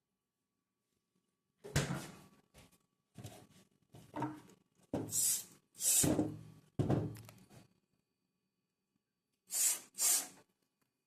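Things being handled in a fridge: a run of knocks, thunks and scraping sounds like shelves, drawers and containers being moved, then two short hissing bursts near the end.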